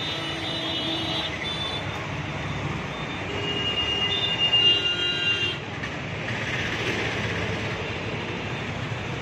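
Steady street traffic noise, with a few high steady tones sounding over it near the start and again about four to five seconds in.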